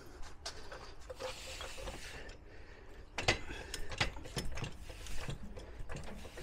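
Ratcheting clicks and metal knocks from a hand tool working the cab-mount bolt of a pickup truck, loosening it so the cab can be raised for a shim washer. The clicks come irregularly, with the sharpest knocks in the second half.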